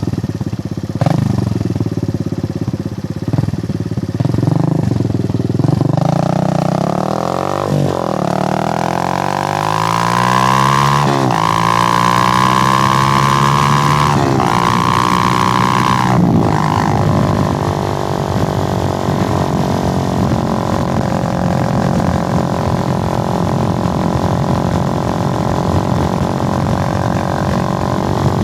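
Suzuki GN125's single-cylinder four-stroke engine running on the road. About six seconds in it revs up through the gears: the pitch climbs, breaks briefly at each of four gear changes, then climbs again. After that it settles to a steady cruise with the pitch slowly easing.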